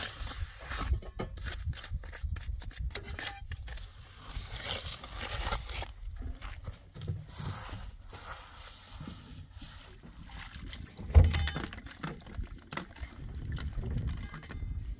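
A steel trowel scraping and spreading wet cement along a block wall in short strokes, with one loud knock partway through; later, water splashing as vegetables are washed in a metal bowl.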